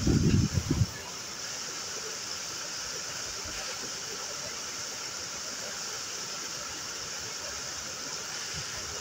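Waterfall rushing steadily. Within the first second a few loud, low thumps sound over it.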